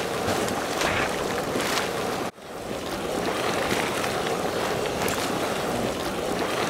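Steady rushing hiss of steam venting from fumaroles in a geothermal field, mixed with wind on the microphone. The sound cuts out for an instant about two seconds in, then carries on.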